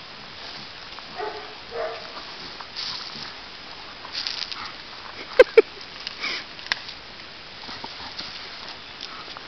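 Bernese Mountain Dog puppies play-fighting: short pitched growling sounds a little over a second in, then two quick, sharp barks about halfway through, with paws scuffling on gravel.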